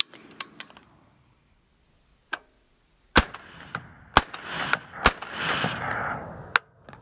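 Suppressed shots from an 8-inch 5.56 AR pistol fitted with a SureFire SOCOM RC2 suppressor: a faint crack a little past two seconds in, then four sharp shots about a second apart, with a hiss running between the last ones.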